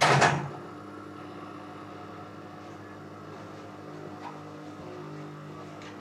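A small 12 V DC gear motor, powered by a 12 V battery charger whose mains feed runs through a lamp dimmer switch, running with a steady multi-tone hum and buzz from the motor and the charger's transformer. A brief loud noise comes in the first half second as it starts. The buzz comes from DC that the dimmer injects into the mains, which strains the charger's transformer.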